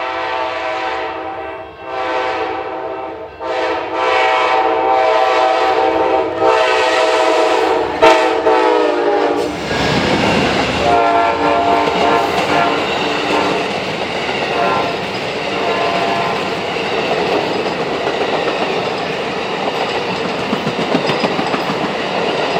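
Horn of an Amtrak GE P42DC diesel locomotive in several blasts, the last held about six seconds and dropping in pitch as the locomotive passes. The locomotives then go by with a loud low rumble, followed by the steady rolling noise of the passenger cars on the rails.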